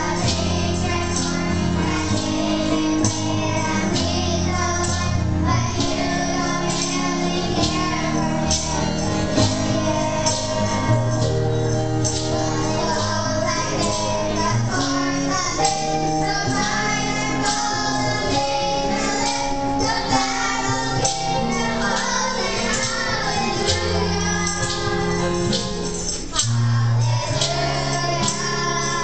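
Children's choir singing over instrumental accompaniment, with a steady percussion beat.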